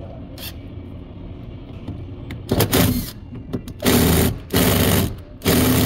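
Cordless power driver run against screws in a car door's inner frame, in four short bursts of about half a second each, starting about two and a half seconds in.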